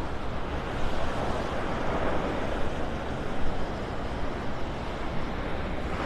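Small waves washing onto the beach, one wash swelling about two seconds in, with wind on the microphone.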